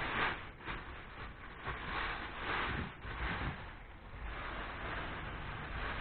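Irregular rasping, scraping strokes, each about half a second long, several in a row.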